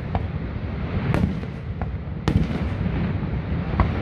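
Aerial fireworks shells bursting: about five sharp bangs, roughly a second apart, over a steady low rumble.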